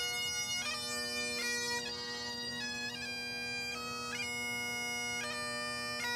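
Highland bagpipes playing a tune: a steady drone under the chanter's melody, which steps from one held note to the next with quick grace-note flicks between them.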